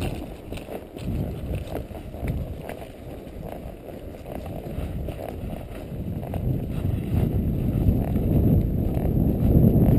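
Low wind rumble on the microphone during a horseback ride, with faint irregular knocks that fit the horse's hoofsteps. The rumble swells over the last few seconds.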